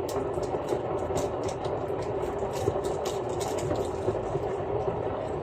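Water heating in a kettle toward the boil: a steady rumble with many small crackling ticks.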